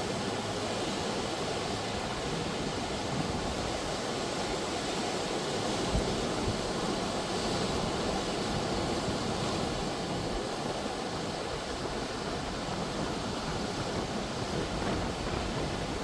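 Pacific Ocean surf: a steady rush of waves washing and breaking on the shore, with no distinct pauses.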